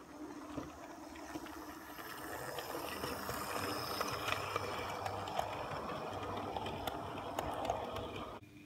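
OO gauge model train running past close by: the steady rumble of its wheels on the track and the locomotive's motor, growing louder as the coaches pass, with scattered small clicks. The sound cuts off suddenly near the end.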